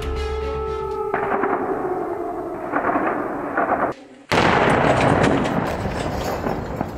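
Gunfire crackling, many rapid shots over a noisy background. It breaks off briefly about four seconds in and comes back louder.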